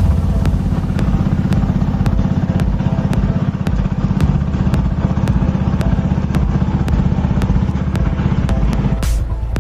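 Motorboat engine running steadily with a loud low drone and a regular clatter about four times a second. The drone eases shortly before the end.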